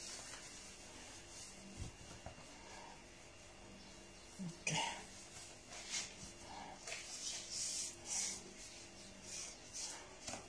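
Faint rustling and handling noises, such as cloth being rubbed as a blouse is adjusted, with a single short cough about halfway through.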